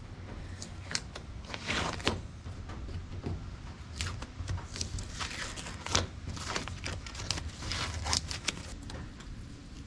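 Blue painter's tape being peeled off a car's body panel and crumpled in the hand: a run of irregular ripping and crinkling noises, with longer peels about two seconds in and again near eight seconds.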